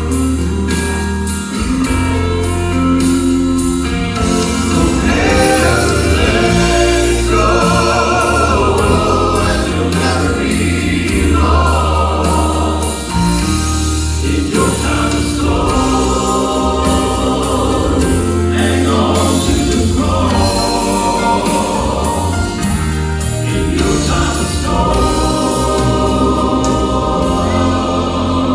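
Gospel song: a vocal quartet singing in harmony over a band backing with a strong bass and a steady beat.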